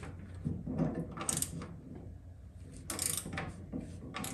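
Ratchet wrench clicking in short, irregular runs as the power brake booster's mounting nuts are tightened against the firewall.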